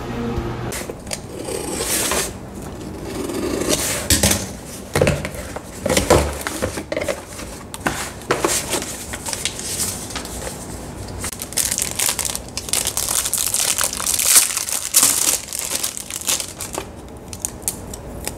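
Hands unpacking a cardboard parcel: bubble wrap and plastic packaging crinkling and rustling, with irregular crackles as cardboard flaps and wrapping are handled.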